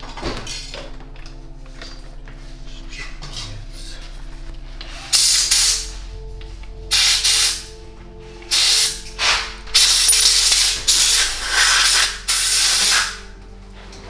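Compressed-air blow gun blowing out a small frame part in a series of short hissing blasts, about seven of them, starting about five seconds in.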